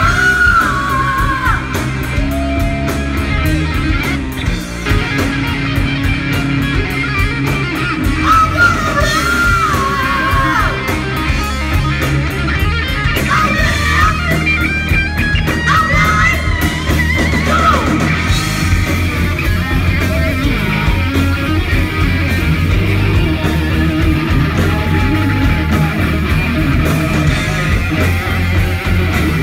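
Live rock band playing loud: electric guitar, bass and drums, with a singer's voice over them through about the first half.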